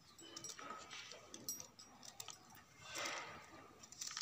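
Faint clicks and scrapes of a kitchen knife cutting cauliflower into small florets over a plastic colander, with brief whimpering vocal sounds about a second in and again about three seconds in.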